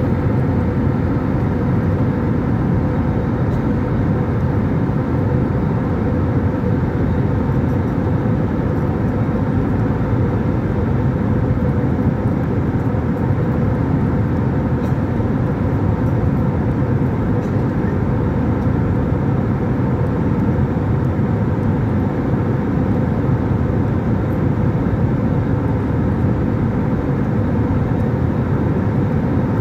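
Jet airliner cabin noise in flight, heard at a window seat beside the wing-mounted turbofan: a constant, unchanging rush of engine and airflow, with a faint steady hum running underneath.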